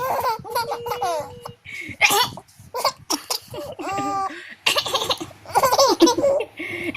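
A baby laughing in repeated bursts of giggles, set off by a woman's coughing, with short coughs heard between the laughs.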